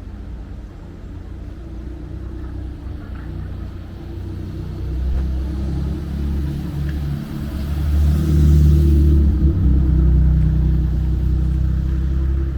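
Camper van engine and road noise rumbling while driving, growing louder from about halfway through.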